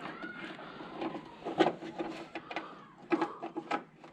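Irregular light clicks and knocks of small parts being handled and fitted while a front scuttle vent is installed by feel.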